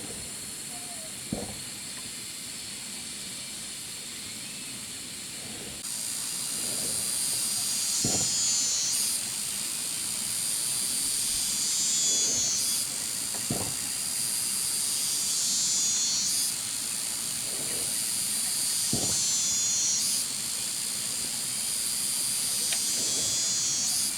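Forest insects buzzing as a steady high-pitched hiss. About six seconds in it becomes a run of pulsing calls, each a few seconds long and falling in pitch. Soft knocks sound about every five seconds.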